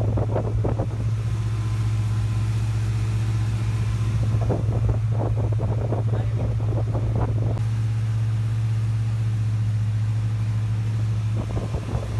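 Yamaha 242 jet boat engine running at a steady speed, a loud, even low hum with no revving.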